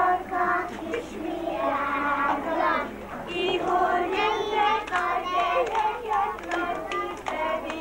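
A group of small children singing a song together.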